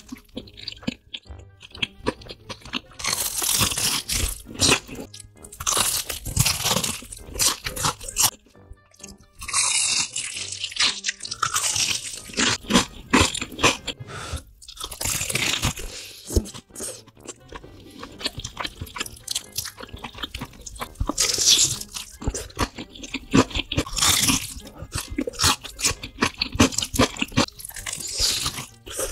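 Close-miked crunching of bites into crispy fried chicken batter, many crackly crunches in quick runs, with chewing between them. Soft background music runs underneath.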